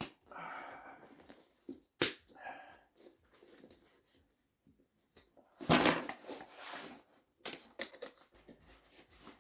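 Handling noise from dry-suit quick-cuff and glove parts being worked by hand: a few sharp clicks and soft rustling, with a louder rustle about six seconds in.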